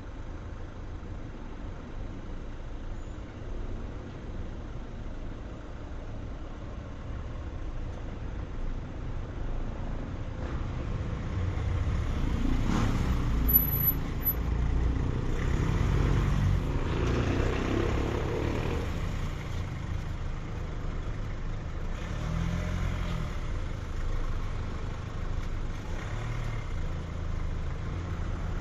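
Parking lot by a busy road: a steady hum of traffic and car engines, with one vehicle growing louder and passing close near the middle, then fading back into the traffic. A brief high chirp sounds about halfway through.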